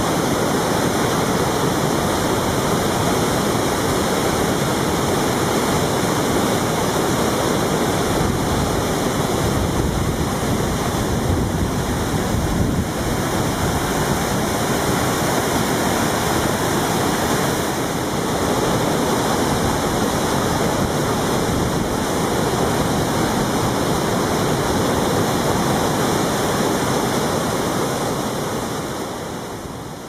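Fukube-Ootaki, an 86 m straight-drop waterfall at full flow, roaring as a heavy, steady rush of falling water. The sound fades out over the last few seconds.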